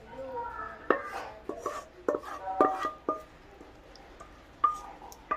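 A cooking utensil knocking and scraping against a wok and plate while sambal sardines are scooped out, about eight sharp clinks that ring briefly, with a pause shortly before the end.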